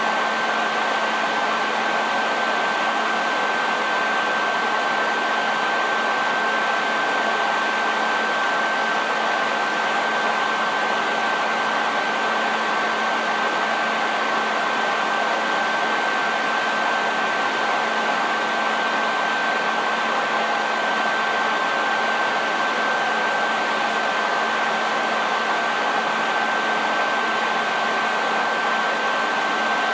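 Hair dryer running continuously: a steady rush of air with a constant motor whine on top.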